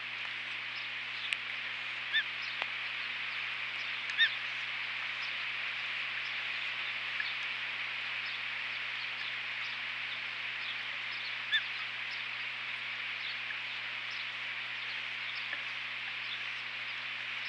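Ospreys at the nest: a few short, high chirps, the clearest about 2, 4 and 11.5 seconds in, over a steady hiss and a low hum.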